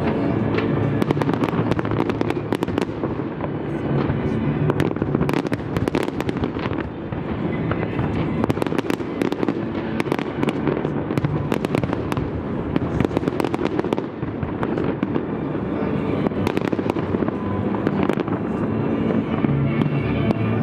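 Fireworks display: aerial shells bursting in quick succession, a continuous run of bangs and crackles.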